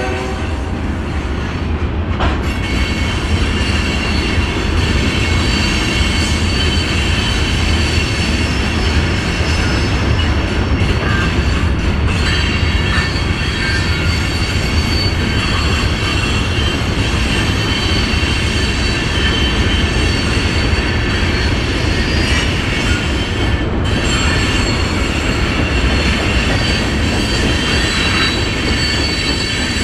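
Freight cars of a BNSF mixed freight train rolling past on a curve: a steady low rumble with thin, high-pitched wheel squeal as the wheels grind against the curved rail.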